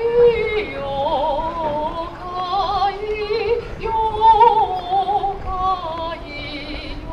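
A woman singing solo, holding long notes with a wide, wavering vibrato and sliding between them.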